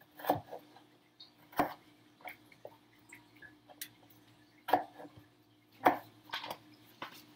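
Chef's knife coming down on a plastic cutting board as mushrooms are cut, giving several sharp, irregular knocks.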